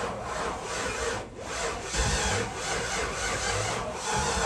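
Starter motor cranking the swapped 5.3-litre LS V8 over in a steady, rhythmic churn without it catching, spinning it to prime it.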